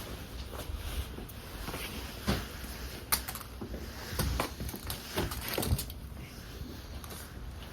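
Low rumbling wind noise, with several sharp knocks and taps between about two and six seconds in.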